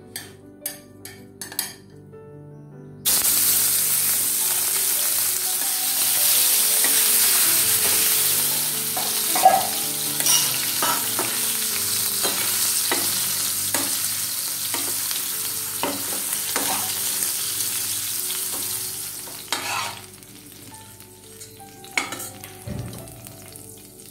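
Prawns frying in hot oil in a steel pan: a loud sizzle starts suddenly about three seconds in and runs steadily, with a metal spatula knocking and scraping against the pan as they are turned. The sizzle drops away near the end, leaving a few utensil clicks.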